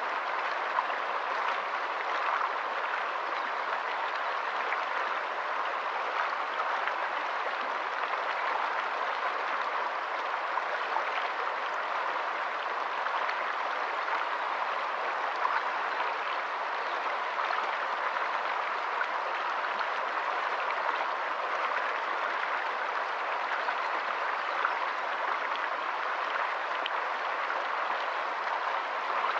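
Shallow, rocky stream flowing over stones in small riffles: a steady rush of running water with many small splashes and trickles scattered through it.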